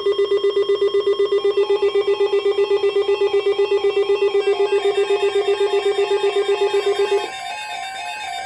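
Electronic emergency-alert tone: a low tone pulsing rapidly, with a higher two-note warble coming in about a second and a half in. The low pulsing cuts off about seven seconds in, leaving the warble.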